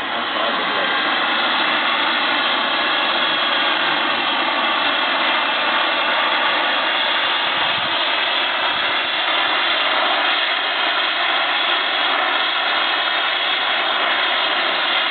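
Gas turbine of a radio-controlled model jet running steadily: an even rushing hiss with a faint steady whine, holding at one power setting.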